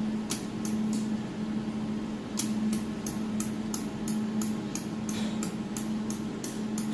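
Adjustment knob of a desktop jewelry laser welding machine being rotated, clicking: a few clicks just after the start, then an even run of about three clicks a second from a little past two seconds in. A steady low hum runs underneath.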